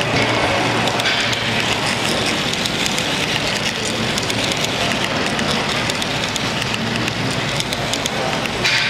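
Metal wheels of a long model freight train rolling close by: a steady rattling clatter with many small clicks.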